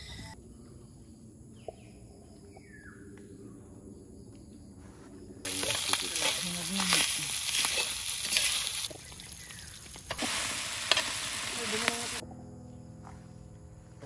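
Cooked rice frying in a stainless steel pan over a portable gas stove, sizzling as a metal spatula stirs and scrapes it. The sizzle starts about five seconds in, breaks off briefly around nine seconds, and stops about twelve seconds in.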